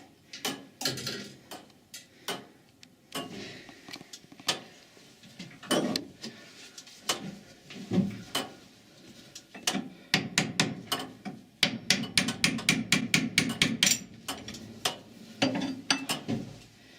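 Metal clicks and knocks from a church turret clock's mechanism being worked by hand while its shaft to the dial hands is reconnected and the hands set. Scattered clicks give way to a fast ratchet-like run of clicking, about five or six a second, from about ten seconds in, before slowing again.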